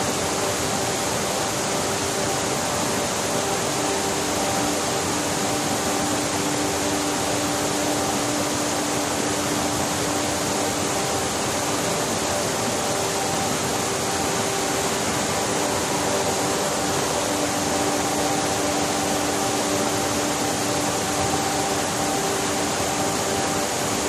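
Small mountain waterfalls pouring over rocks: a steady rush of falling water.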